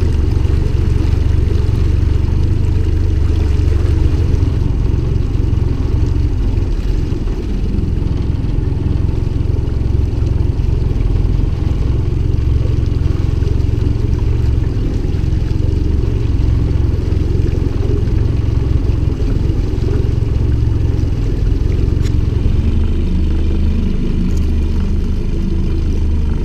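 Outboard motor running steadily, pushing a small wooden boat along at trolling speed.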